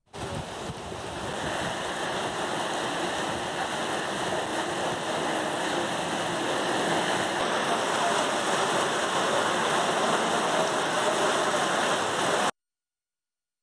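Heavy rain pouring down in a steady, even hiss, cutting off abruptly near the end.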